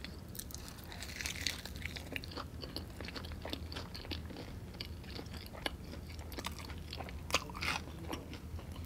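Close-miked chewing and biting of sauced, crispy fried chicken wings: a steady run of small wet crunches and mouth clicks, with a couple of louder crunches about seven and a half seconds in.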